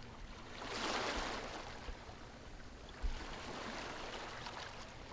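Sea waves washing on a shore, with a swell of surf about a second in and another rising about three seconds in.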